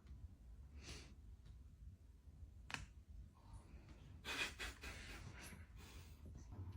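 Faint, short breaths and rustling, with a sharp click about three seconds in and a cluster of breathy sounds a little later, over a low hum.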